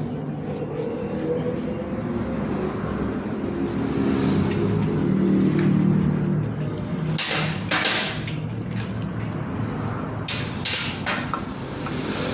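Metal clinks and knocks of motorcycle starter-clutch (Bendix) and flywheel parts being handled and fitted. The knocks come in a cluster about seven seconds in and again near the end, over a steady motor drone that fades after about six seconds.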